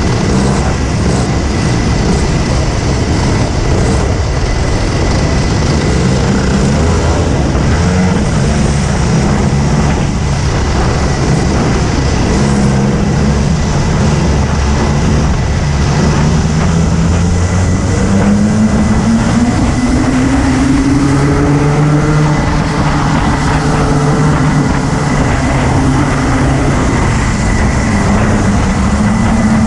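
Onboard sound of a Daytona DMAX kart's engine racing among a pack of other karts, the engine note rising and falling as it goes through the corners and climbing steadily for a few seconds past the middle as it accelerates.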